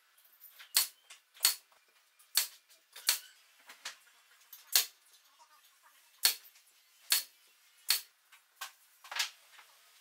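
Brad nailer firing brads into wooden birdhouse pieces: about nine sharp snaps at uneven intervals, roughly one a second.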